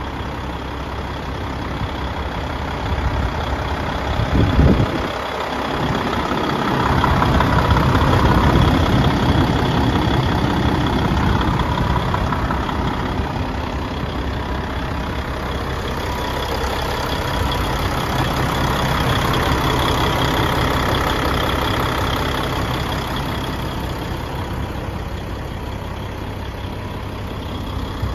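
Truck diesel engine of a 2008 DAF 105.460 (a PACCAR MX 12.9-litre six-cylinder) idling steadily, growing louder and quieter as the microphone moves around the truck, with a short louder burst about four seconds in.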